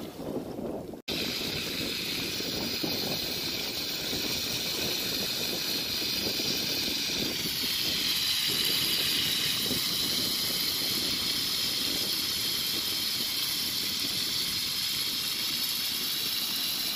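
Spiny lobster halves frying in oil in a pan over a wood fire: a steady sizzle that swells a little about halfway through.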